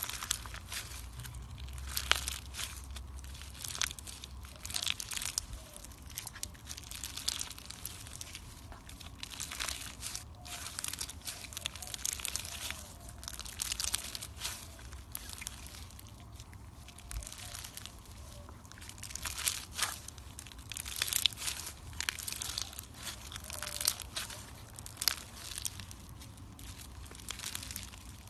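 Slime being squeezed and worked by hand, making dense, irregular crackles and small pops, heavier in bursts.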